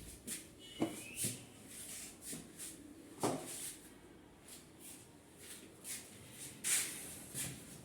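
A string of light knocks and clicks at irregular intervals, with a brief rising squeak about a second in: small handling noises and steps in a room.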